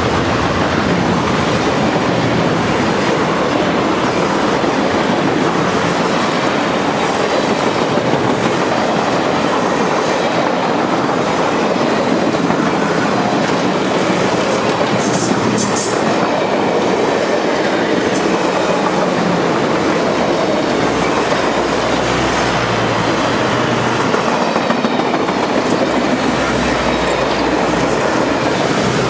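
Passenger railcars passing close by at speed: steady loud rolling noise of steel wheels on the rails.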